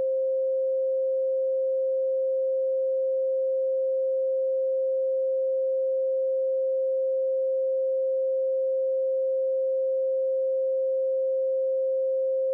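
A single pure sine tone a little above 500 Hz, held steady at an even level: a generated listening 'frequency' tone.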